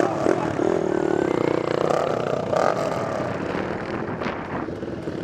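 Dirt bike and quad engines running, idling with one revving up and falling back through the middle, with a few sharp knocks.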